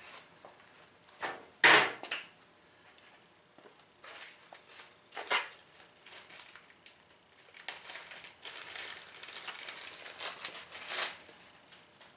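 Hands handling the ATV's wiring and plastic parts: a few sharp clicks and knocks, the loudest about two seconds in, with a stretch of rustling and scraping near the end.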